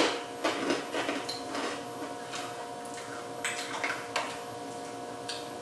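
Crisp freeze-dried candy being chewed: scattered, irregular crunches and clicks.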